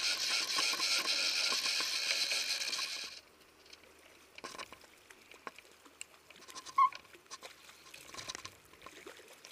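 Fishing reel drag buzzing as a hooked fish pulls line off, a loud rapid rasp that cuts off suddenly about three seconds in. After that, only faint clicks of the rod and reel being handled, with one sharp tick about seven seconds in.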